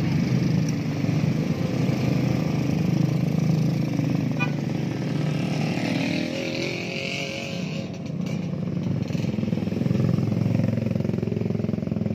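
Small motor scooters riding past one after another, their engines running, with cars passing close among them.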